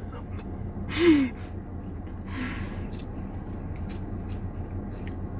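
A person eating ice cream with a spoonful in her mouth: a short breathy vocal gasp falling in pitch about a second in, then a softer breath, over a steady low hum.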